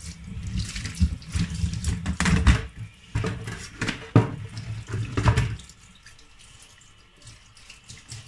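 Kitchen tap running into a steel sink, the water splashing on a plastic cutting board, with short knocks and clatter during the first five seconds or so; after that it goes much quieter.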